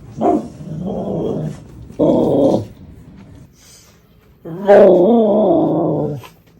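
A dog giving three drawn-out 'arooo' howl-like vocalizations, the last one the longest with a wavering, warbling pitch. This is a happy, excited 'talking' sound rather than an aggressive growl.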